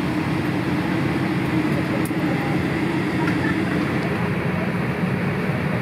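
Steady rushing cabin noise inside a Boeing 787-8 Dreamliner on the ground, with a low hum underneath.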